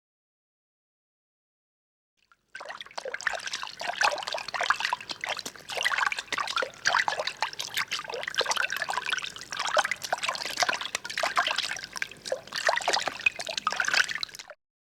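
Water trickling and splashing irregularly. It starts after about two and a half seconds of silence and cuts off abruptly near the end.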